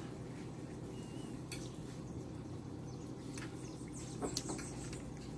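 Quiet eating of a mussel off a fork: a few faint clicks over a steady low hum. One brief, faint bird chirp about a second in.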